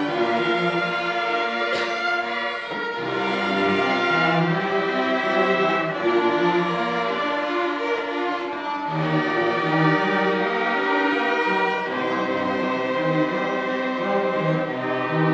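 A student string orchestra of violins and cellos playing a classical piece, with bowed notes held and changing together.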